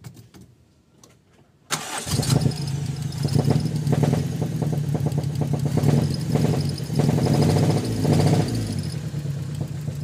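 Toyota 4A-F four-cylinder engine turned over on the starter for about nine seconds, starting suddenly after a quiet second and a half, as a compression test is run on one cylinder. The gauge on that cylinder does not rise, pointing to little or no compression there.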